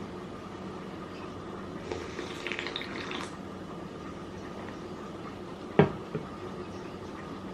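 A sip of hot coffee slurped from a cup about two seconds in, lasting about a second, then a single sharp knock near six seconds, over a faint steady hum.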